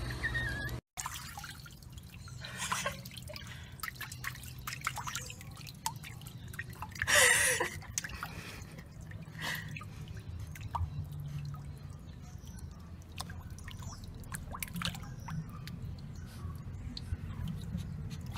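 Water dripping and splashing in a small plastic paddling pool as a small dog paddles, in many short irregular splashes, with one louder burst about seven seconds in.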